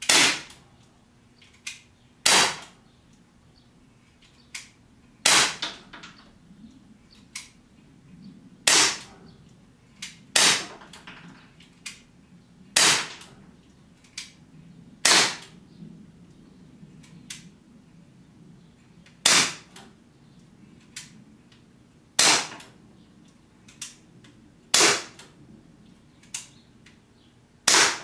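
Umarex Glock 19 CO2 BB pistol, non-blowback, being fired shot by shot: about eleven sharp pops spaced two to four seconds apart, with fainter clicks between them.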